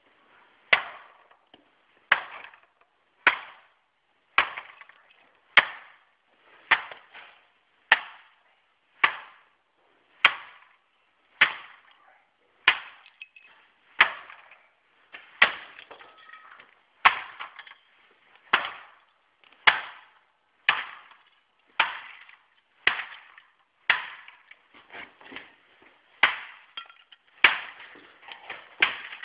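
A toy car being smashed with a garden tool: a steady run of about 25 sharp blows, a little under one a second, each followed by a brief clattering rattle as pieces break off.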